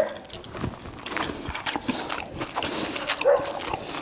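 Close-miked chewing and lip-smacking of a mouthful of food, with short sharp clicks of a knife and fork against a plate.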